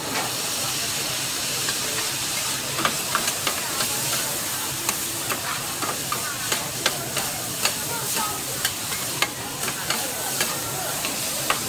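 Noodles sizzling on a hot flat steel griddle as they are stir-fried, the sizzle growing louder right at the start. Metal spatulas clink and scrape sharply on the griddle plate every half second or so as the noodles are tossed.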